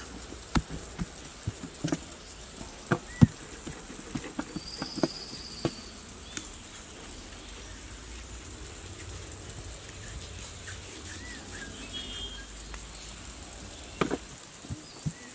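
Hands patting, pressing and slapping soft bread dough on a floured metal tray, a run of soft thuds in the first several seconds and again near the end as dough balls are set down. A bird chirps briefly a few times in the background.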